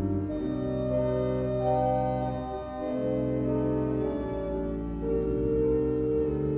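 Church pipe organ playing a slow piece in held, sustained chords, the chord changing every second or so over a low bass line.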